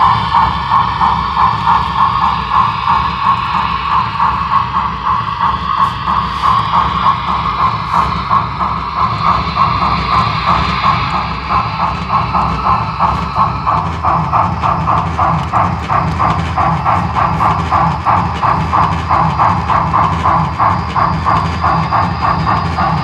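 Sound decoder in a Broadway Limited HO-scale steam locomotive playing steady, rhythmic steam chuffing with hiss as the train runs, from the locomotive's small onboard speaker.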